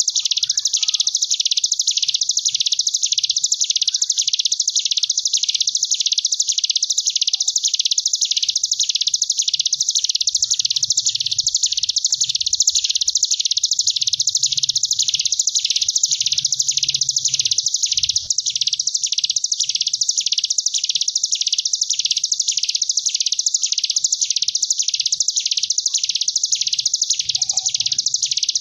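Ciblek gunung (hill prinia) singing its 'ngebren' song: an unbroken, high buzzing trill that swells and fades in waves about one and a half times a second, like a bee.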